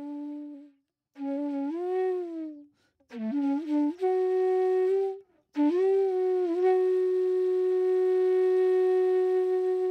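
Background music: a solo melody on one wind-like pitched line, in short phrases with pitch slides, settling a little past halfway into one long held note.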